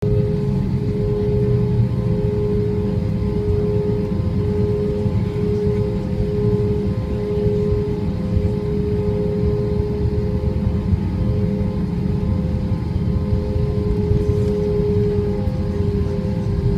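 Airbus A320 jet engines heard inside the cabin at steady low power while taxiing: a constant low rumble with a steady whine over it.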